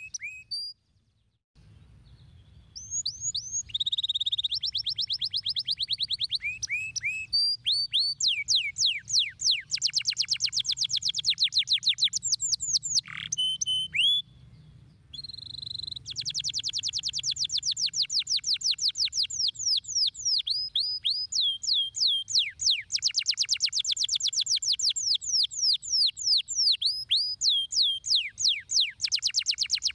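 Domestic canary singing long, fast trills of quick repeated notes, many sweeping downward, with brief pauses about a second in and about halfway through.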